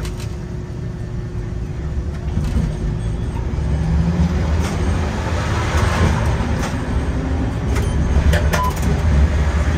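Nagasaki streetcar running along its track, heard from inside the tram: a steady low rumble of motors and wheels on rail that grows louder after a couple of seconds, with a few scattered clicks and knocks.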